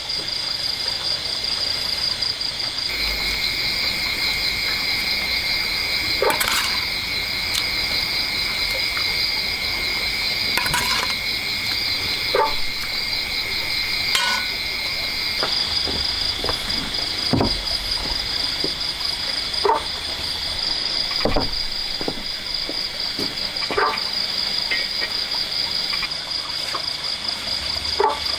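A steady chorus of insects trilling in several high, fast-pulsing tones, with one tone dropping in about three seconds in and out again around fifteen seconds. Scattered short knocks and clicks sound over it about a dozen times.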